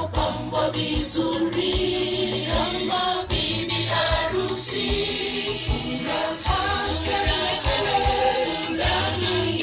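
A choir sings a gospel song over a steady low drum beat.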